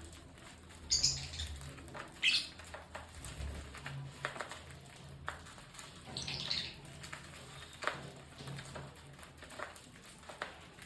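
Lovebirds giving a few short, high chirps, the loudest two in the first few seconds, with scattered light clicks in between.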